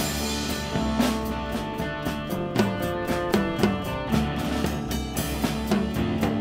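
Live rock band playing an instrumental stretch: a drum kit with sharp cymbal and drum hits over sustained guitar notes.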